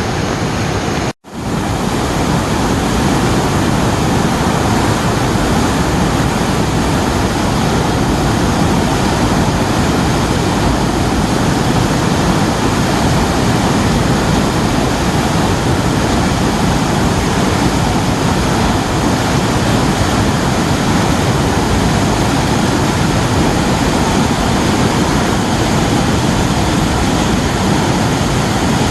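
A waterfall swollen by heavy rain, its water pouring down in a loud, steady rush. The sound cuts out for an instant about a second in, then carries on unchanged.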